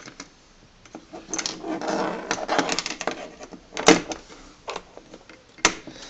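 Irregular plastic clicks and rustling from a car laptop power adapter and its cable being handled, with a sharp click about four seconds in and another near the end.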